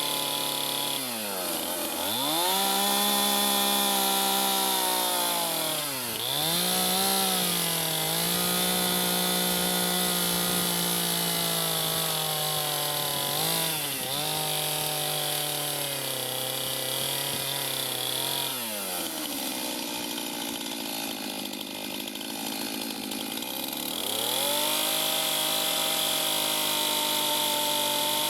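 Chainsaw running at high revs as it cuts a log. Its pitch dips and recovers several times as the chain loads up in the wood. About two-thirds through it drops off, then revs up again.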